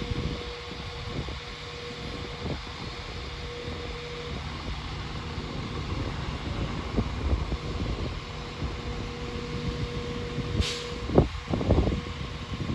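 Class 195 diesel multiple unit standing at the platform with its engines idling: a steady hum with a faint steady tone that drops out for a few seconds midway. About ten and a half seconds in there is a short hiss of air, followed by a few low thumps near the end.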